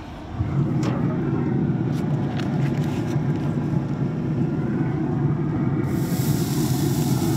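Traeger pellet grill running with a steady low hum, with a few light clicks of handling the lid and grate in the first few seconds. A steady hiss joins about six seconds in.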